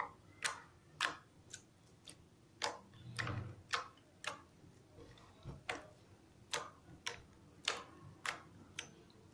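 Mixed green slime pressed and squashed by fingers, giving sharp sticky clicks and pops as its air pockets burst, roughly two a second.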